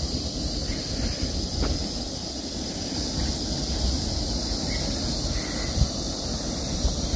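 Wind rumbling on the microphone, over a steady high-pitched insect hiss.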